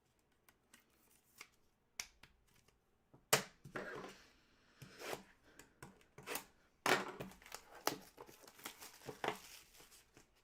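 Trading-card packaging torn open and crinkled by hand. There are sharp crackling tears about three seconds in and again near the middle, with lighter crinkling between and after.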